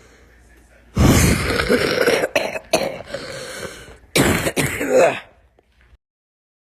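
A person coughing loudly from a cold, heard in a recorded voice message: a first fit of coughs about a second in, a few short coughs after it, and a second loud round about four seconds in.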